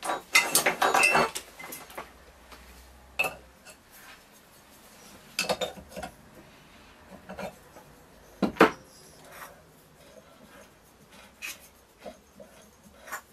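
Metal clinks and knocks of hand tools and small engine parts being handled while the flywheel nut is done up: a quick clatter about half a second in, then scattered single clicks and knocks.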